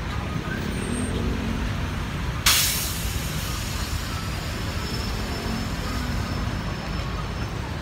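Busy city road traffic: a steady low rumble of passing vehicles, with one sudden sharp hiss about two and a half seconds in.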